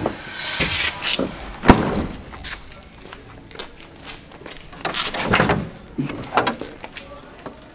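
A pickup truck's hood being released and opened: a sharp clunk about two seconds in, then more clunks and rattling about five to six seconds in as the hood is freed and lifted. The engine is not running.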